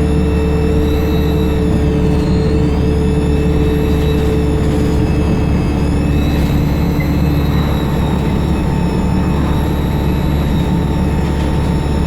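ADL Enviro 200 bus's diesel engine running with a loud turbocharger whistle over a steady low drone; the whistle's pitch drops about two seconds in and climbs again about six seconds in as the engine load changes.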